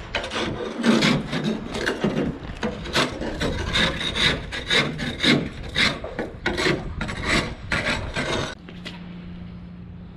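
Barnacles being scraped off a boat hull: a hand scraper rasps in repeated strokes, about two a second, and stops about eight and a half seconds in. A steady low hum remains after the scraping stops.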